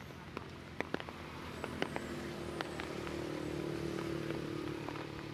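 Hum of a motor vehicle's engine in the distance, swelling from about two seconds in and easing slightly near the end. A few sharp clicks and taps come in the first two seconds.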